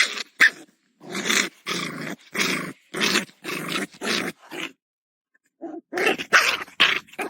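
A dog barking and growling in short, evenly spaced barks, about two a second, with a pause of about a second before a quicker run near the end.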